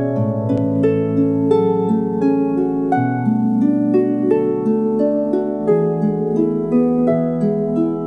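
Lyre music: plucked strings playing a flowing melody of a few notes a second, each note ringing on into the next, over lower notes held underneath.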